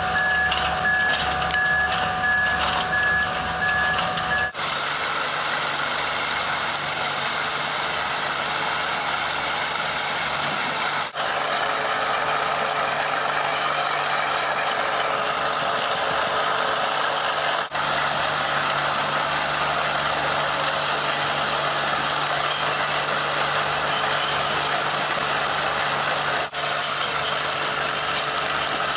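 Heavy excavator machinery running: for the first few seconds a warning alarm beeps about twice a second over a steady engine whine, then, after an abrupt change, a steady noisy engine-and-hydraulics sound continues, broken by short dips where the footage cuts.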